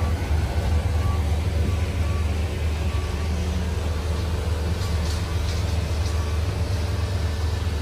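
Pickup truck's engine idling, a steady low rumble.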